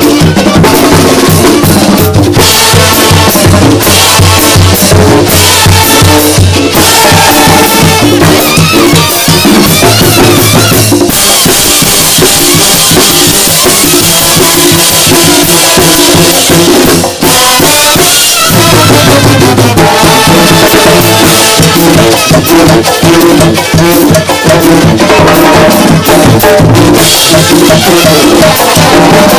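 Oaxacan brass band playing live and loud: brass instruments over snare drum, bass drum and cymbals in a fast dance rhythm. For several seconds in the middle the horns thin out while the drums and cymbals carry on.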